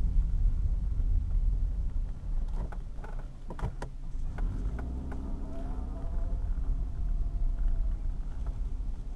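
Car driving, heard from inside the cabin: a steady low rumble of engine and road noise, with a few sharp clicks a few seconds in and a faint engine hum that rises slightly about halfway through.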